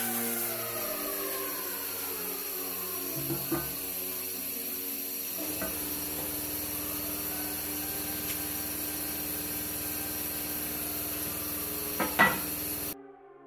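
Background music with a few sharp metal clanks as a heavy steel plate is laid onto steel clamping pads on a machine bed. The loudest clanks come as a quick pair about twelve seconds in, and the sound cuts off suddenly just before the end.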